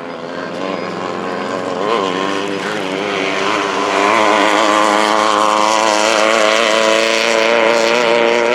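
Off-road race car's engine running hard as the car approaches, growing louder over the first four seconds and then staying loud. The car is a Class 11 stock Volkswagen Beetle with an air-cooled flat-four.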